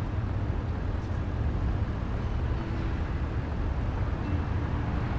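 City street traffic: a steady low rumble of passing road vehicles.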